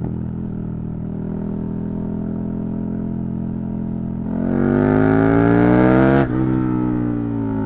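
KTM 1290 Super Duke R's big V-twin engine running steadily under part throttle, then revving up hard with a rising, louder note for about two seconds. The note cuts off suddenly about six seconds in, then the revs fall away slowly.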